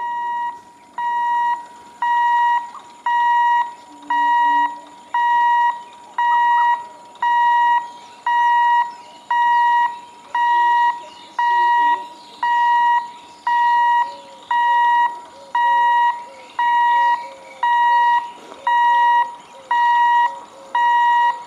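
Level-crossing warning hooter beeping steadily, one high, even-pitched beep about every second, the signal that a train is approaching and the barrier is down.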